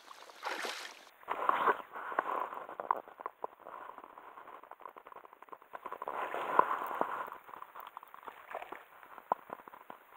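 Irregular splashing and crackling of disturbed water, in uneven bursts with many small clicks, loudest about a second and a half in and again about six and a half seconds in.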